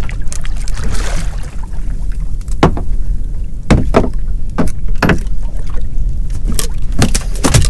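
Steady low wind rumble on the microphone, and a string of sharp splashes and knocks as a conger eel is handled at the side of a small boat and lifted out of the water.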